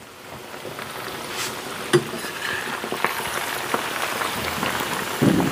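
Sliced potatoes frying in hot oil in a large wide pan: a steady sizzle with scattered sharp pops and crackles. It grows louder over the first couple of seconds.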